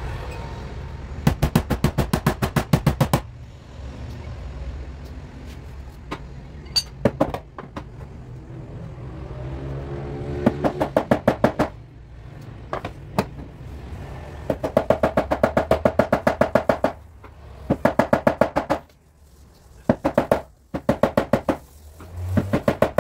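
Rapid metallic tapping from a powered paintless-dent-repair tool working the car door panel. It comes in runs of about ten taps a second, each one to three seconds long, with short pauses between them.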